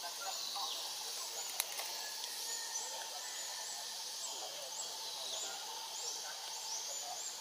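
Outdoor forest ambience: a steady high insect hiss with repeated short high chirps and faint distant voices. A single sharp click comes about one and a half seconds in.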